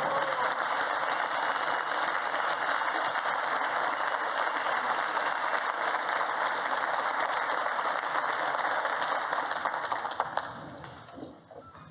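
Large audience applauding steadily, the clapping dying away over the last second or so.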